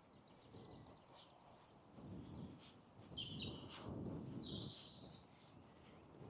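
A few short, high bird chirps and whistles in the middle of the stretch, over a soft, uneven low rustle.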